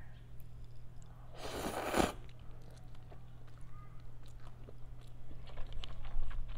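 Close-miked mouth sounds of eating instant ramen noodles with chopsticks: chewing and slurping, with small wet clicks. One loud burst of noise lasts about half a second, starting about a second and a half in.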